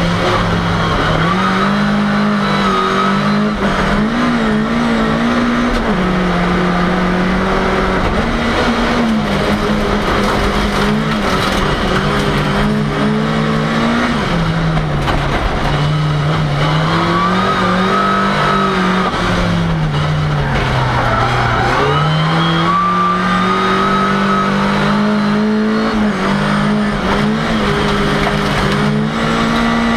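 Ford Cortina's engine racing, heard from inside the car: the engine note rises and falls repeatedly as the car accelerates and lifts off. There is a deep dip about two-thirds of the way through before it climbs again, and high tyre squeals come in at times.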